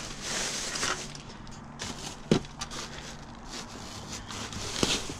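Plastic trash bags rustling and crinkling as a long reach pole pokes through dumpster contents, with a sharp click about two seconds in and a smaller one near the end.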